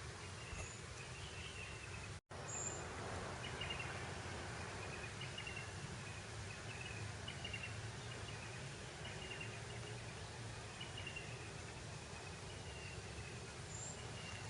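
Breeze over grassland: a steady wind hiss and low rumble, with a short high chirp repeating about once a second and a couple of brief higher calls. The sound drops out completely for an instant about two seconds in.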